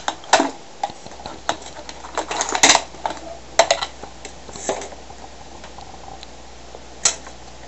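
Scattered metallic clicks and clinks of hardware and parts being handled on a television's metal chassis, busiest in the first few seconds, with one more click near the end, over a faint steady hum.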